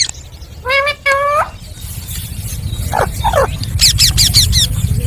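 A parrot calling: two short rising calls about a second in, two falling calls around three seconds, then a quick run of high, sharp calls, over a steady low rumble.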